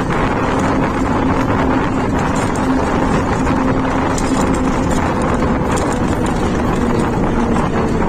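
Moving bus heard from inside: a steady engine hum under loud, even road and wind noise.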